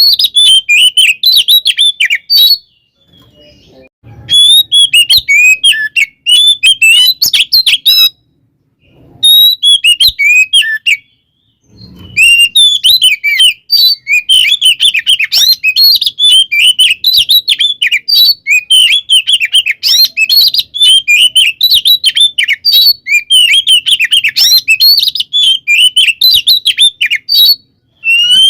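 Oriental magpie-robin (kacer) singing in fast, chattering runs of loud high chirps and whistles, its aggressive fighting song, broken by three short pauses.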